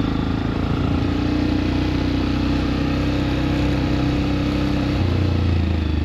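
Motorcycle engine running at a steady pace, its note changing about five seconds in.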